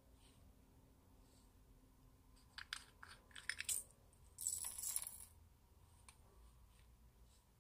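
A few sharp plastic clicks, then about a second of dense clattering as a small plastic jar of pearl beads is tipped out and the beads spill and scatter.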